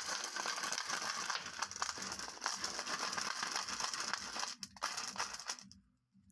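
Glass marbles rattling and clicking against one another in a plastic tube as they are handled, a dense clatter that stops suddenly near the end.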